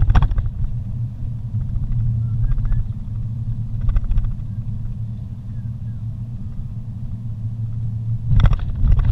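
Steady low rumble of a car driving slowly on a paved road, heard from inside the cabin, briefly louder three times: near the start, around four seconds in, and near the end.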